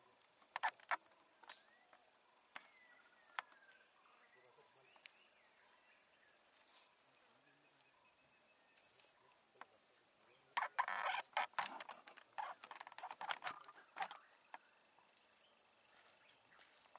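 Faint, steady high-pitched drone of insects in the forest, with a few short crackles and rustles of dry brush, mostly in a cluster about ten to fourteen seconds in.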